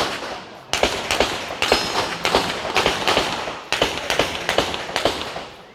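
Handgun shots fired in quick strings, often in close pairs, several shots a second with brief pauses between strings, each shot ringing out briefly.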